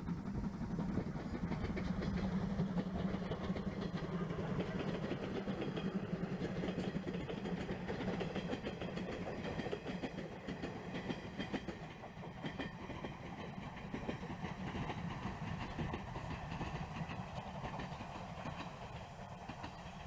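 Distant steam locomotive hauling passenger coaches past, running steadily with wheel clatter, then slowly fading through the second half as it moves away.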